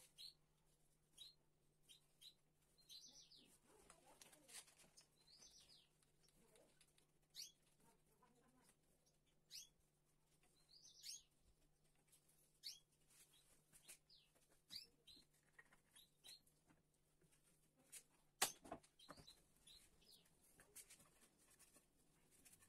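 Faint bird chirps, short high calls every couple of seconds, over scattered clicks and knocks of wood and bar clamps being handled; the loudest is a sharp knock about three-quarters of the way through.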